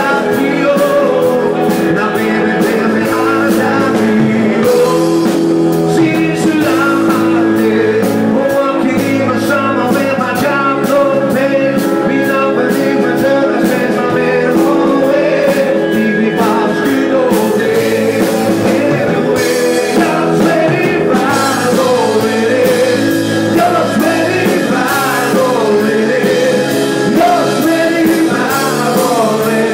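Live rock band playing: electric guitars and bass guitar with a steady beat, and a singer's voice over the top.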